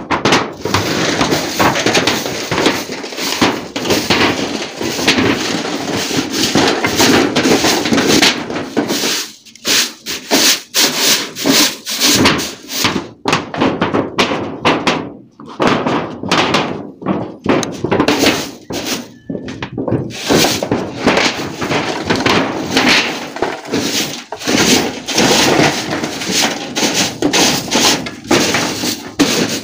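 Clay roof tiles being shifted by hand, scraping and knocking against one another in a dense run of clunks and rubbing, with a few short pauses.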